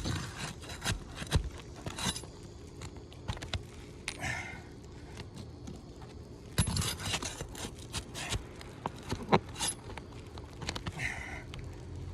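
Flat scraper blade and pry bar working under asphalt roof shingles to free rusted roofing nails: scraping and rubbing broken by sharp clicks and knocks. The loudest knocks come about a second and a half in and again near the end.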